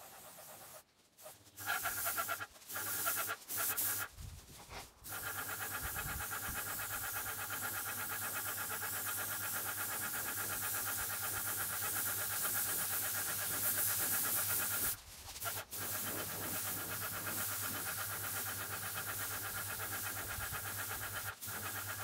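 Graco airless paint sprayer in use: the steady hiss of paint leaving the spray gun over a steady hum. It comes in short trigger pulls for the first few seconds, then holds, with a brief break about two-thirds through and another near the end.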